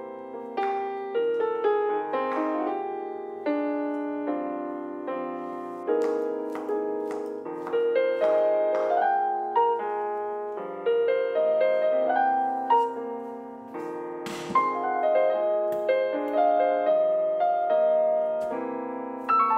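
Solo piano background music: a gentle melody of single struck notes over soft lower chords, each note ringing and fading.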